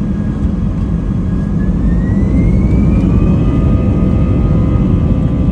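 Airbus A320's jet engines spooling up for takeoff, heard from inside the cabin: a deep steady rumble with a whine that rises in pitch about a second or two in and then holds steady as the sound grows a little louder.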